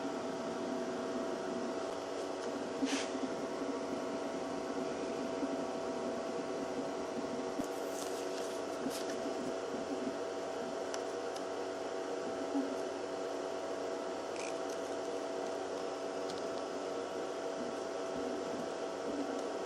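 Small CNC milling machine running steadily, its spindle motor giving a steady whine, with a few short clicks.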